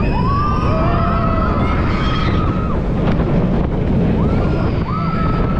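Roller coaster riders screaming, one long held scream over the first couple of seconds and a few shorter screams near the end, over heavy wind rushing across the microphone as the train runs.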